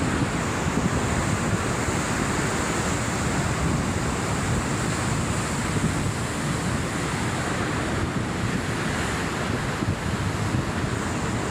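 Sea surf washing in steadily, mixed with wind rumbling on the microphone; an even rush with no single wave crash standing out.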